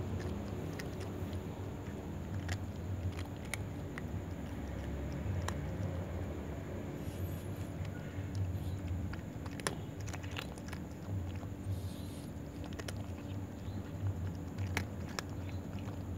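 A cat chewing dry kibble, with irregular sharp crunches as it bites the pieces. A steady low hum runs underneath.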